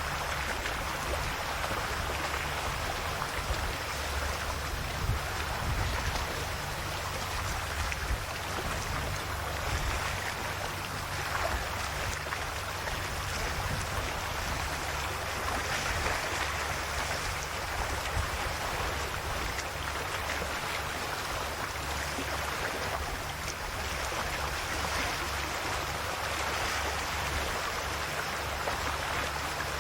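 Calm sea waves washing gently onto the shore in a continuous wash that swells softly every few seconds, over a steady low rumble.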